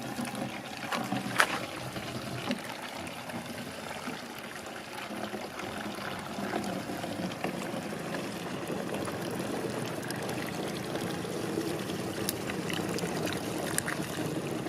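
Liquid pouring and trickling steadily, with a few sharp clacks in the first couple of seconds.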